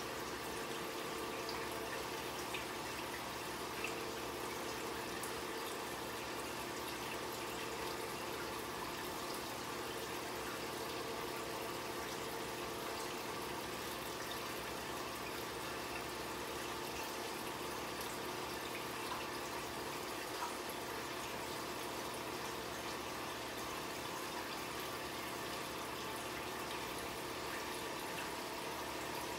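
Aquarium water circulating steadily: the continuous trickle and splash of the tank's filtration, with a faint steady hum under it.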